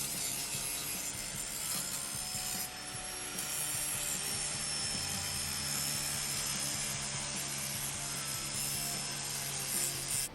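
Abrasive power tool working on the truck's steel body during prep for epoxy primer: a steady scraping hiss with a faint high whine.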